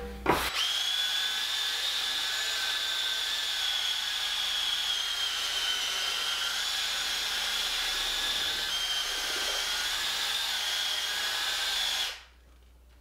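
Cordless drill/driver mixing ready-mixed drywall joint compound in a bucket: a steady motor whine that starts about half a second in and cuts off about a second before the end.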